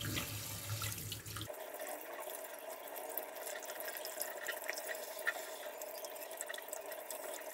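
Tap water running and splashing over fish pieces in a stainless-steel colander in a steel sink as hands rinse them, with drips and small splashes. A low hum underneath stops abruptly about a second and a half in.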